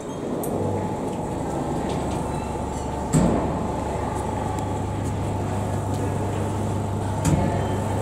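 Polytex automated towel-dispensing machine working after a card is presented: a steady mechanical hum, with a knock about three seconds in and another near the end, as it delivers a towel to its hatch.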